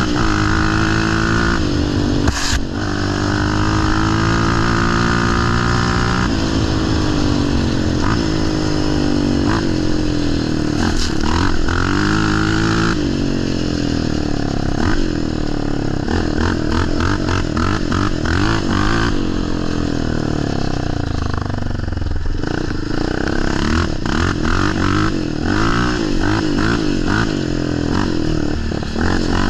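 Yamaha Raptor 700 ATV's single-cylinder four-stroke engine through a Big Gun dual exhaust, loud and revving up and down with the throttle while riding.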